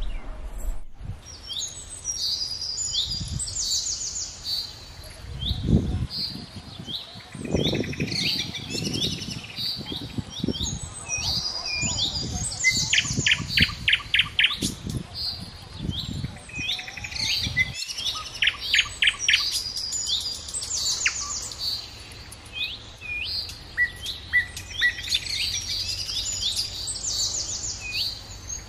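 Several small birds chirping and calling, with quick runs of repeated notes, over low rustling thumps that stop about eighteen seconds in.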